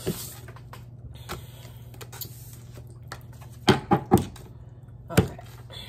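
Tarot cards being dealt and snapped down onto a desktop: three quick sharp snaps a little past halfway and one more about a second later, over a low steady hum.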